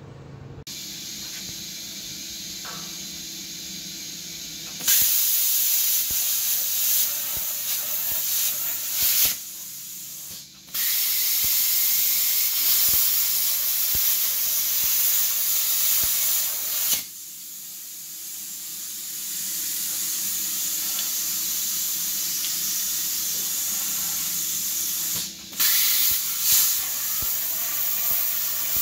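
Plasma cutter cutting steel chassis side rails: a loud, steady hiss of the arc and air jet that starts about five seconds in, then stops and restarts several times with short breaks. Before the first cut there is a steady low hum.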